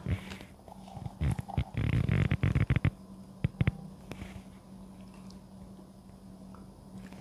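Handling sounds as chopped spring onion is sprinkled over the dish: a quick run of small clicks and taps starting about a second in, two more around three and a half seconds, then only a low steady hum.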